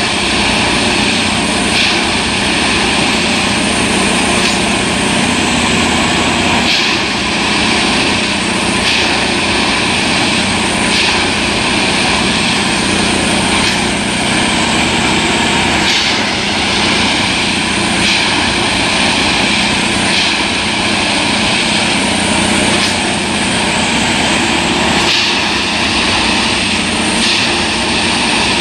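Plasser & Theurer 09-3X tamping machine working the track: a loud, steady machine drone, with a short rush of higher noise about every two seconds.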